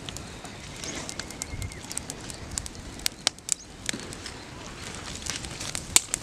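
Open wood fire of dry twigs and sticks crackling with irregular sharp pops, the loudest pop near the end.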